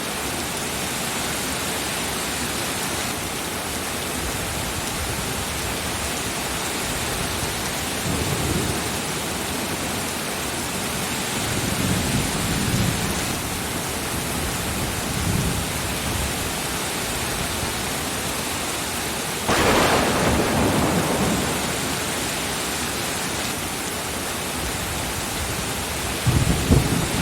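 Steady heavy rain with several low rolls of thunder. A louder, sudden thunderclap comes about twenty seconds in, and more rumbling follows near the end.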